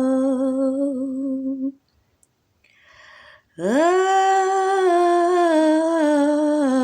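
A single voice humming long held notes. The first note breaks off under two seconds in and a breath is drawn; then a new note swoops up in pitch, is held, and steps down near the end.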